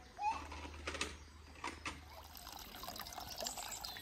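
Water trickling in a small garden water feature, with a few short louder drips or splashes about a quarter second, a second and two seconds in.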